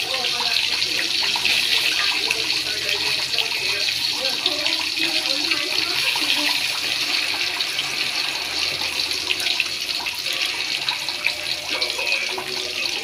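Milkfish (bangus) frying in hot oil: a steady sizzle thick with fine crackles and pops.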